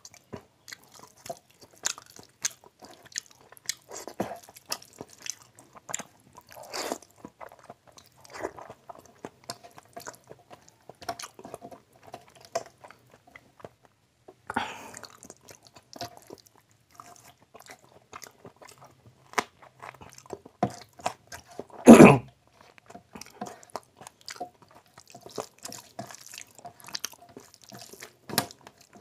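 Close-miked eating sounds of a man eating rice and curry by hand: wet chewing and lip smacks with many sharp mouth clicks. One much louder sudden noise comes about two-thirds of the way through.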